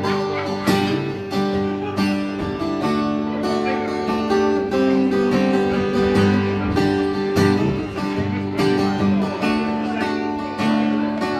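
Live acoustic Americana band playing an instrumental intro: strummed acoustic guitar with a second guitar and a fiddle holding long notes over it.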